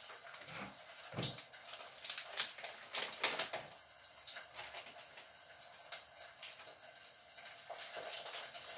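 Cottage-cheese pancakes (syrniki) frying in oil in a pan, a steady sizzle with scattered crackles and pops. A soft knock about a second in.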